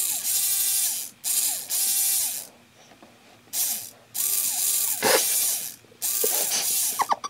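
A small robot arm's motors and gears whirring in short bursts, about eight times, each with a whine that rises and falls in pitch as it moves a mascara wand in jerky steps.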